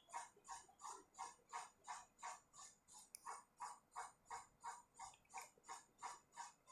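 Faint mechanical ticking that repeats evenly, about three times a second.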